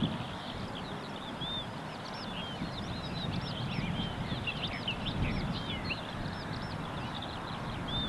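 Many small birds chirping and whistling without pause in short, quick, curving notes, over a low uneven rumble.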